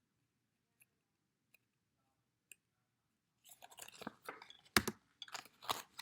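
Small plastic toy being handled and unfolded: a few faint ticks, then from about three and a half seconds in a run of crinkling, crackling plastic with sharp clicks.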